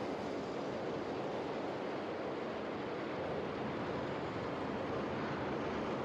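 Steady noise of a subway train running, heard from inside the car.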